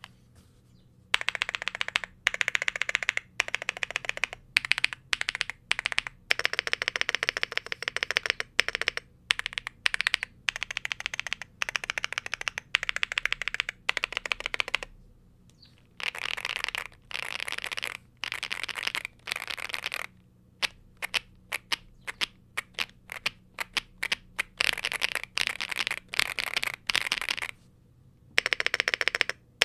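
Typing on a Yunzii AL75 mechanical keyboard in stock form: factory-lubed Yunzii Cocoa Cream V2 linear switches under double-shot PBT keycaps, on a gasket-mounted polycarbonate plate. Fast, steady keystrokes come in runs of several seconds, with short pauses between them.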